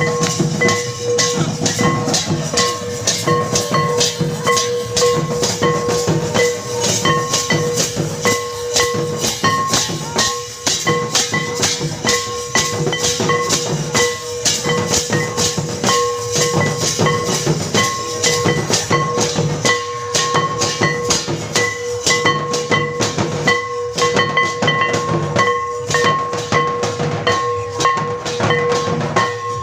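Live Santali dance music: double-headed barrel drums and small metal hand cymbals beating a fast, steady rhythm, with a sustained high note held over it.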